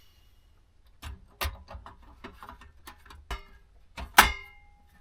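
Irregular clicks and clanks of a camp stove and metal pot being handled and put together, the loudest a sharp metallic clank near the end that rings briefly.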